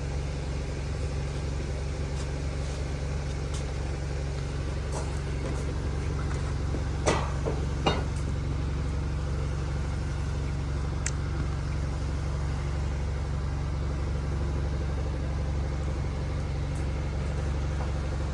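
A steady low machine hum, with two short sharp knocks about seven and eight seconds in.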